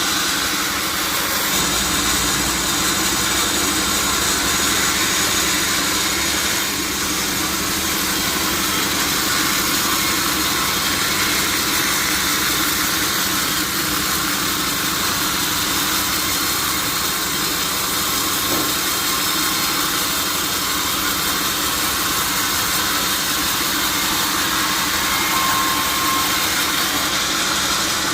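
Sawmill saw machinery running steadily, an unbroken mechanical noise with a low hum and no pauses.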